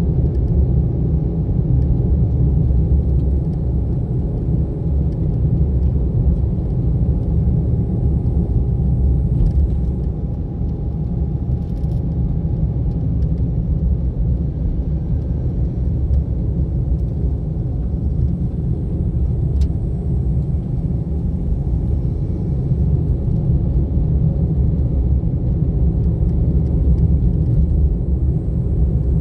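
A car being driven: a steady low rumble of engine and tyre noise, with a few faint knocks.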